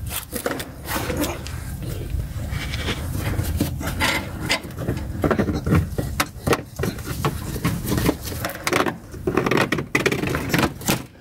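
Plastic under-engine splash shield being worked loose and pulled down by hand, giving an irregular string of clicks, knocks and scrapes.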